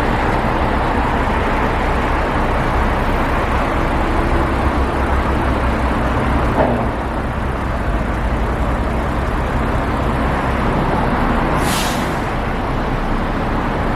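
A motor engine running steadily, with a brief hiss of air about twelve seconds in.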